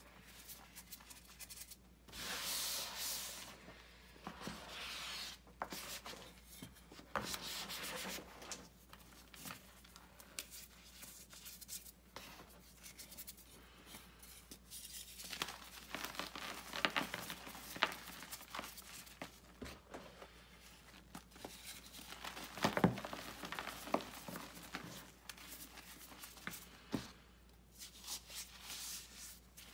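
Hands crushing and rubbing lumps of gym chalk into a bowl of loose chalk powder: soft, irregular crunching and scraping, with sharper crackling crunches in the second half.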